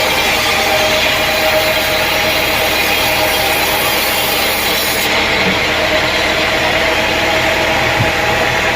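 Sawmill saw cutting through a teak log, a loud steady run of sawing noise over a running engine. The highest hiss drops away sharply about five seconds in.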